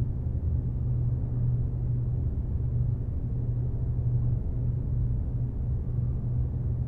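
A steady low rumble, cutting off abruptly at the very end.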